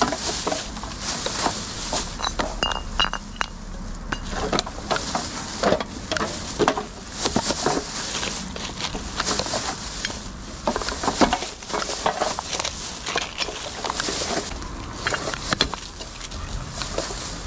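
Irregular clinks, crackles and rustles of litter being collected: a litter picker's grabber gripping cans, plastic bottles and wrappers off the grass and dropping them into a plastic rubbish bag.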